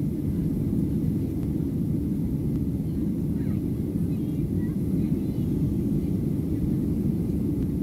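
Steady low rumble of a Boeing 737-700 in climb, heard from inside the passenger cabin: the CFM56-7B engines and the airflow over the fuselage.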